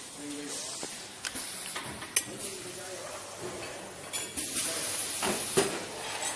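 Light clinks and taps of small hand tools on a hard work surface, with a short high hiss about four seconds in and a few more knocks after it.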